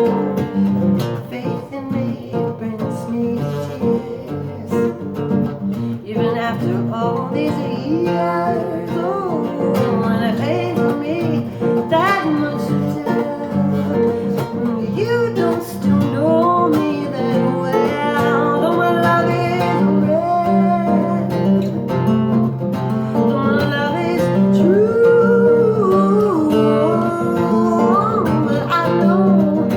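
Acoustic guitar strummed and picked, with a woman singing over it from about six seconds in.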